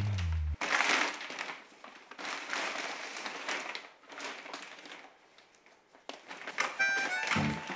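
Woven plastic IKEA FRAKTA shopping bag rustling and crinkling in several bursts as it is set down and handled. Background music ends just after the start and comes back near the end.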